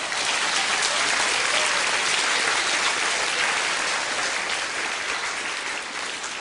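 Theatre audience applauding, a dense steady clapping that eases off near the end.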